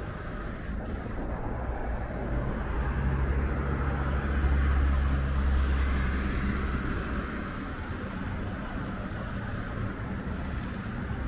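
Diesel engine of a motor cargo barge passing close by: a low, steady drone that swells to its loudest around the middle and then fades, over a steady background hiss.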